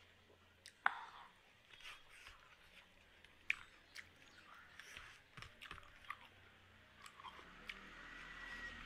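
Close-up chewing and lip-smacking of a person eating a rice meal by hand, with scattered wet smacks and clicks; the sharpest smacks come about a second in and about three and a half seconds in.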